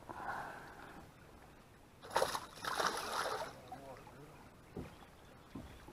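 Water sloshing and splashing against a boat, with two louder rushing splashes about two and three seconds in.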